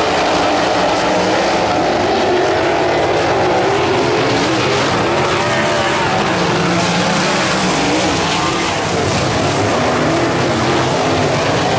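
A pack of winged dirt-track sprint cars racing, their V8 engines running at high revs in many overlapping tones that rise and fall as the cars go through the turns.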